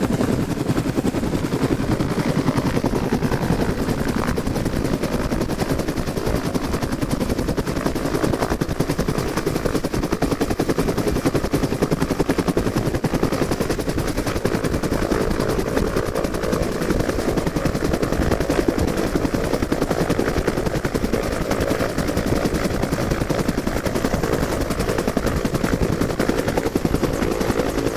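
Bell UH-1 Huey helicopter close by, its two-bladed main rotor beating in a rapid, steady slap over the engine as it hovers in and settles onto its skids.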